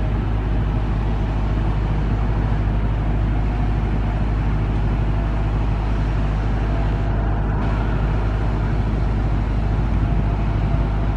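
Airbus A330 jetliner on final approach: steady, unbroken noise from its two turbofan engines, mostly deep rumble, with faint steady tones above it.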